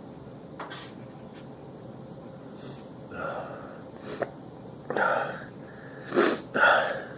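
A man sniffing and snorting hard through his nose, about half a dozen forceful breaths that grow louder, the loudest two close together near the end. He is drawing ground pepper up his nose to bring on a sneeze.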